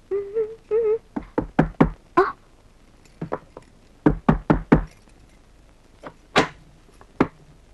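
Knocking on a wooden door in several quick bursts of raps, with a few single knocks near the end.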